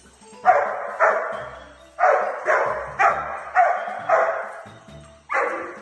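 A dog barking, about eight barks at uneven intervals, each one short and fading quickly.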